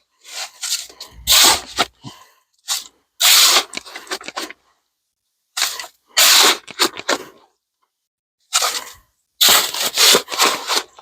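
Shovel scraping and churning concrete in a plastic mixing tub, in about seven rough, irregular strokes with short silences between them, working dry pockets out of the mix.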